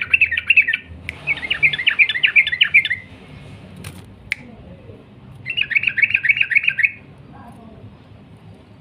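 Yellow-vented bulbul (trucukan) singing in long, rapid chattering phrases of quick bubbling notes. There are three bursts of one to two seconds each, and two sharp clicks fall in the pause between the second and third.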